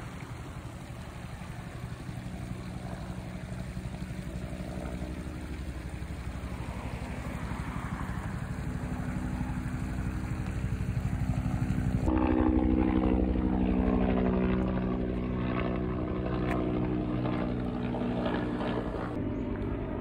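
A motor's steady, even drone, slowly growing louder, then stronger and fuller from about halfway through before easing off a little.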